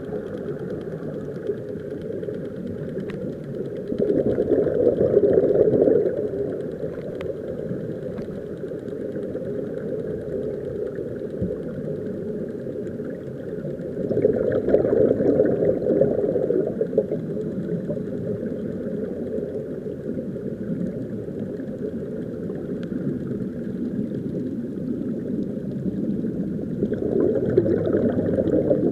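Muffled underwater noise heard through a waterproof camera housing: a steady low rumble that swells louder three times, about every ten seconds.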